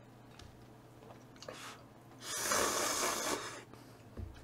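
A mouth noise while eating: one breathy rush of air, about a second long, a little after two seconds in, over a faint steady low hum.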